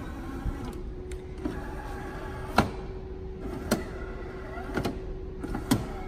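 Automatic bean-to-cup coffee machine running a brew cycle: a steady motor hum starts about half a second in, with several sharp clicks about a second apart.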